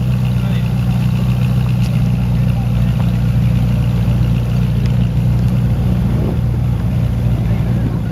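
Ferrari 458 Italia's V8 idling steadily, a deep even burble from its exhaust with no revs.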